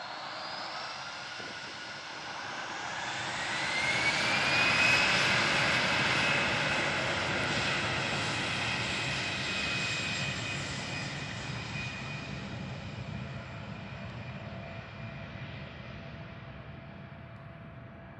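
Airbus A330-900neo's Rolls-Royce Trent 7000 turbofans as the airliner rolls past on the runway: jet noise swells with a rising whine, is loudest about five seconds in, then slowly fades as it moves away.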